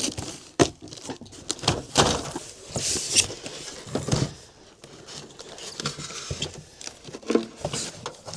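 New adjustable-leg sawhorses being handled and unfolded: scattered clicks and knocks of the frame and legs, with some rustling.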